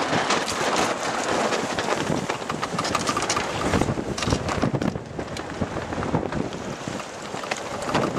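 Strong wind of about 25 mph, gusting to 35 mph, buffeting the microphone aboard a small sailboat under sail: a steady rush of noise that swells and dips unevenly, broken by many short crackling knocks.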